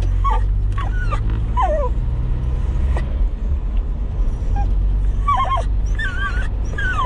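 Cocker spaniel whining in a string of short, squeaky whimpers that waver and slide down in pitch. Under it runs the steady low drone of the Toyota KE70 Corolla's engine and road noise, heard inside the cabin.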